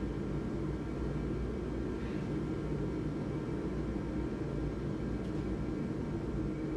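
A steady low mechanical drone with a faint hum of fixed tones over it, unchanging throughout.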